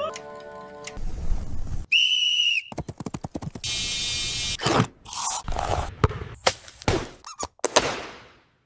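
A rapid chain of short, unrelated sound effects: a pitched tone, a low rumble, a high whistle-like beep, a buzzing, then a run of sharp clicks and knocks that fade out near the end.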